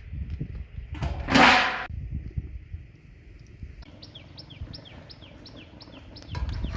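Dull knocks and one loud rushing burst about a second in, then a small bird chirping a quick, even run of short falling notes, several a second.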